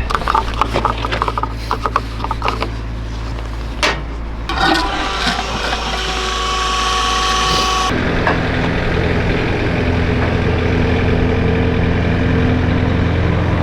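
An engine idling steadily under scraping and clicking handling noises. About four and a half seconds in, a steady whine joins for a few seconds, then the sound changes abruptly to an even engine run.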